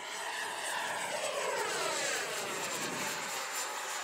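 A 64mm electric ducted fan on an XFly T-7A Red Hawk foam RC jet passes by: a rushing jet-like sound with a thin high whine. It gets louder to a peak about two seconds in and sweeps down in pitch as the plane goes past.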